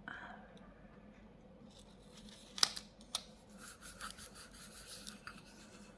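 A temporary tattoo sheet being handled and pressed onto a resin plate: a sharp tap, a second lighter one, then a couple of seconds of quick scratchy rubbing of paper on the hard surface.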